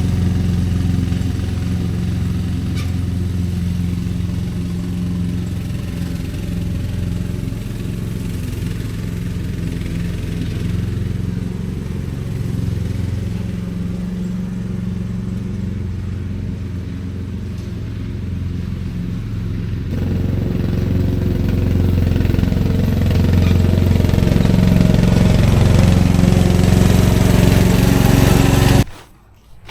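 Lawn mower engine running steadily, a little louder in the last third, then stopping abruptly near the end.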